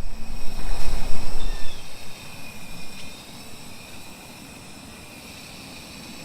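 Outdoor ambience: loud low rumbling gusts, like wind buffeting the microphone, for the first two seconds or so, then a steady background with thin, constant high-pitched insect trilling.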